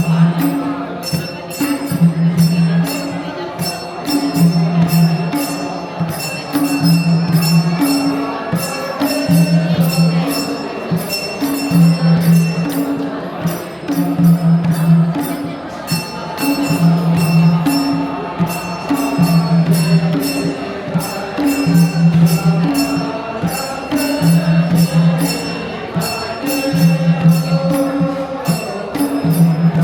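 Traditional Gurung dance music: voices singing over a low note that repeats about every one and a half seconds, with fast, steady jingling strokes above.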